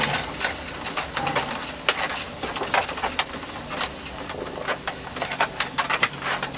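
Packed snow crackling and crunching under a slowly driving car and the wooden sledge towed behind it: irregular sharp crackles, several a second, over a steady hiss, with the car's engine humming low underneath.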